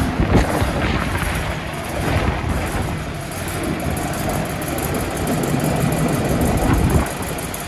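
John Deere 8850 tractor's V8 diesel engine running at idle just after starting, with a short rise in level about seven seconds in.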